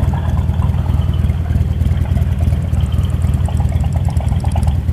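Buell motorcycle engine running at low speed, a steady low rumble, as the bike rolls slowly into a parking lot.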